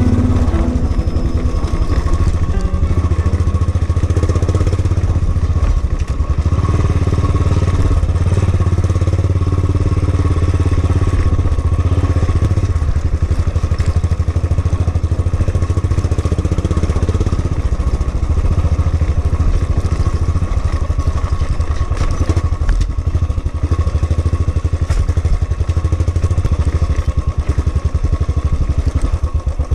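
Royal Enfield Bullet 350's single-cylinder four-stroke engine running steadily while the bike is ridden over a rough, rocky dirt trail, its low, even firing beat carrying throughout.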